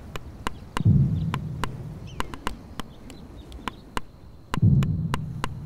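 Steel chisel being struck by hand about three times a second, cutting a groove into stone: a steady run of sharp taps. Two louder low rumbles swell up about a second in and again near the end.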